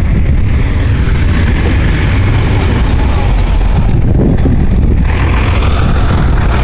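Loud, steady rumble of cars running on the street, with a hiss of noise over it that grows brighter about five seconds in.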